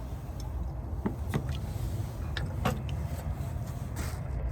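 Beer cans being handled and set down on a surface, giving a few light knocks and clinks over a steady low rumble.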